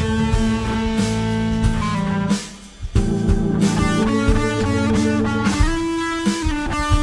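Instrumental music with guitar, bass and drums, stopping briefly about two and a half seconds in before coming back.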